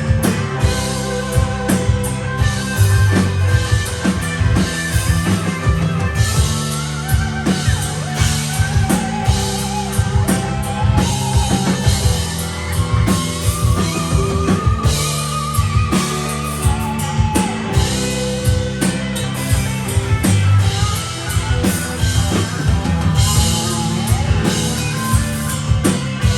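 A rock band playing live: electric guitar over a drum kit and bass, with sustained lead lines that waver in pitch.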